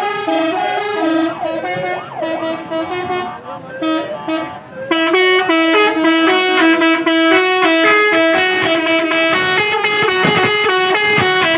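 Tour bus telolet horn playing a quick melody of stepped notes, several tones sounding together. It is weaker and broken for the first few seconds, then turns louder and fuller about five seconds in.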